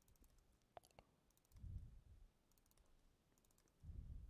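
Near silence, with a few faint clicks from a laptop keyboard being typed on and a couple of soft, low thumps.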